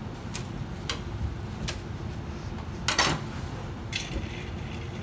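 A few light clicks and knocks of a sashimi knife against a plastic cutting board as the blade is handled and wiped with a cloth, the loudest knock about three seconds in, over a steady low background hum.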